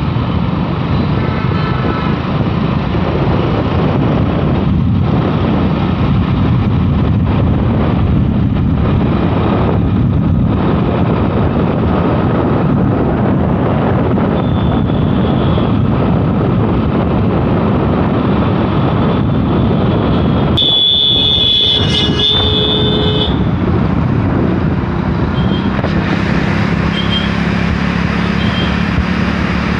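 Wind rushing over the microphone and traffic noise while riding a motorbike along a busy road. A vehicle horn sounds for about two and a half seconds about twenty seconds in, and short horn toots follow near the end.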